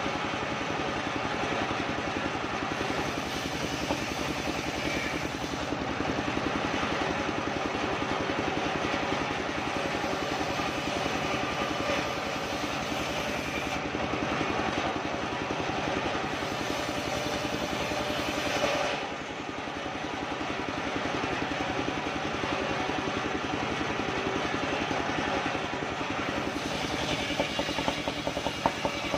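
Engine-driven sawmill with a large circular saw blade ripping a soft kapok (randu) log lengthwise, the engine running steadily under load. The sound dips in loudness about two-thirds of the way through, and a rhythmic pulsing starts near the end.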